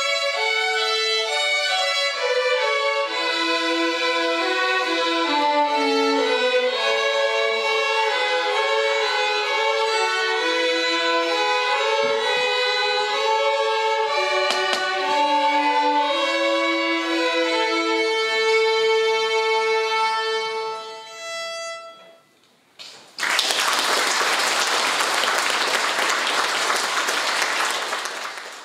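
Violin ensemble playing a piece, ending on a long held note that fades out about 21 seconds in. After a short pause the audience applauds for about five seconds.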